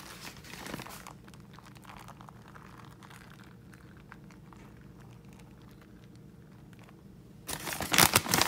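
Shredded cheese being sprinkled by hand over sauced enchiladas in a glass baking dish: faint, scattered soft ticks and patters, then from about seven and a half seconds in, loud, rapid rustling as more cheese is handled.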